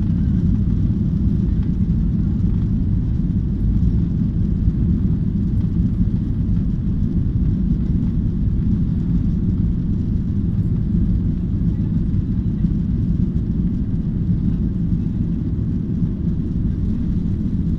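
Cabin noise of a Boeing 737-800 on its takeoff roll: a steady, loud low rumble from its CFM56 turbofan engines at takeoff power and its wheels running on the runway.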